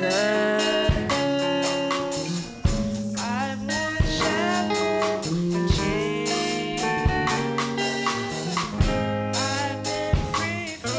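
Live gospel praise and worship song: young women singing into microphones over a drum kit and held backing chords.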